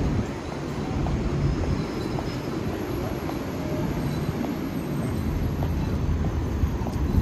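City street traffic: a steady low rumble of vehicles.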